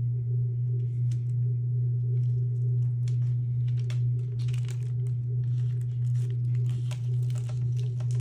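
Parchment paper crinkling and rustling as it is pressed and wrapped around a glitter-coated tumbler, the rustles coming more often from about three seconds in. Under it runs a steady low hum.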